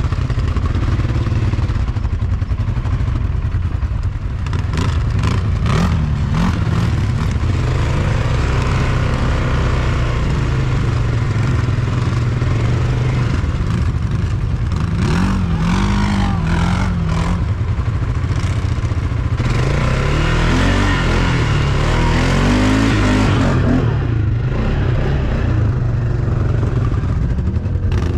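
CFMoto 850 ATV engine running, with a steady low drone and the engine note rising and falling around 15 and again around 21 seconds in. A run of short clattering knocks comes about 5 to 8 seconds in.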